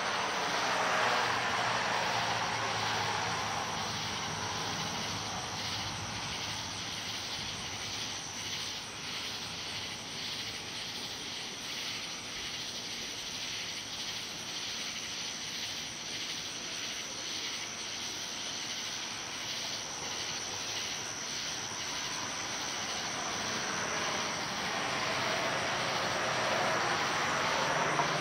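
Night insects chirping in a steady, even pulse over a constant high whine, under the rushing noise of a distant passing vehicle that fades away over the first few seconds and builds again near the end.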